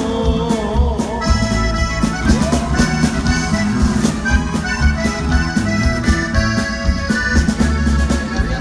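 Norteño music: an accordion playing an instrumental melody over a steady bass line and drums.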